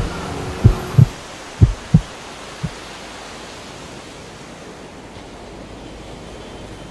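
A run of about six short, heavy low thumps in the first three seconds, then a steady rushing noise of wind and water from a speedboat under way.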